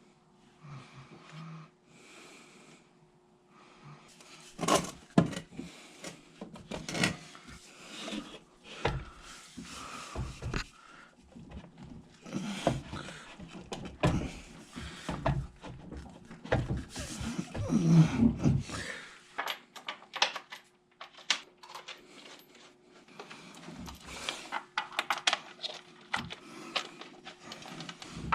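Irregular clinks, knocks and rattles of metal parts and tools being handled during pool pump seal work, over a faint steady hum. The handling is busiest from about four seconds in until about three-quarters through, then sparser.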